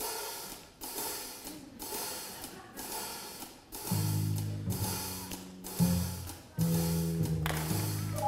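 Instrumental introduction to a show tune: a steady beat of drum and cymbal hits about once a second, joined about four seconds in by a line of low bass notes.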